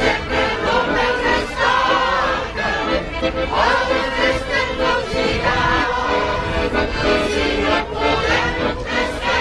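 A mixed choir of women and men singing a song together, held notes changing every second or so.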